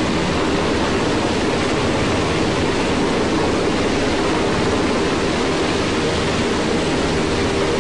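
Navy rescue helicopter hovering close by under the bridge: a loud, steady rushing noise from its rotor with a low drone beneath, setting in abruptly at the start.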